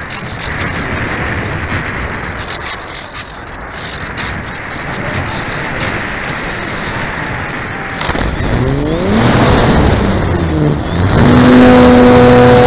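Onboard a radio-controlled glider: wind rushing over the camera microphone while it glides. About eight seconds in, the propeller motor starts with a whine that rises in pitch, then runs steady and loud near the end under power.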